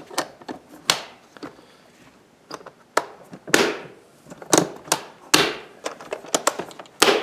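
Hard plastic tackle boxes clacking and knocking as they are handled and slid into the slotted storage rack of a Skeeter ZX200 bass boat's compartment. A string of sharp knocks and clicks, with two longer scrapes around the middle as boxes slide into the slots.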